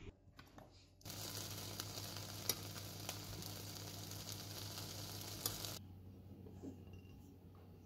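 Metal spoon stirring fruit juice and agar in a pot over medium heat: a steady hiss with occasional sharp clicks of the spoon. It starts about a second in and cuts off suddenly near the end.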